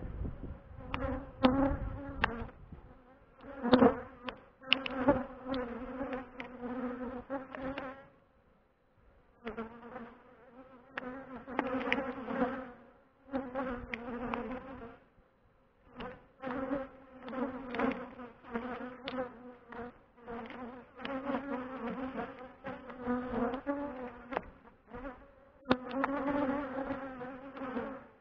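Honeybees flying around their hive, their buzz swelling and fading as single bees pass close. The buzz drops away briefly twice.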